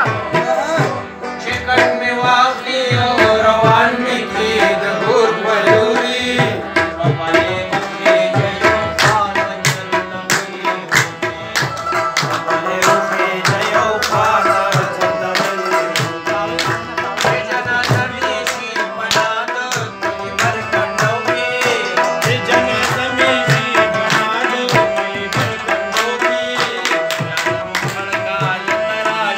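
Tabla drums played in a fast, dense rhythm under an Afghan rubab plucking the melody: an instrumental passage of a Pashto ghazal.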